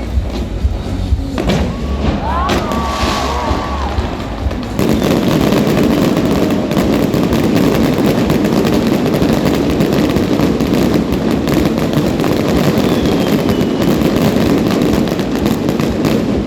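Fireworks going off. About five seconds in it turns into a dense, rapid crackling that grows louder and keeps going.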